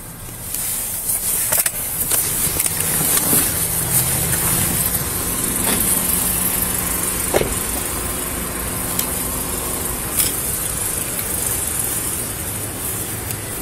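A car engine running, heard through a body-worn camera microphone with steady hiss and rustling, and a few short knocks as the wearer gets out of the car and walks.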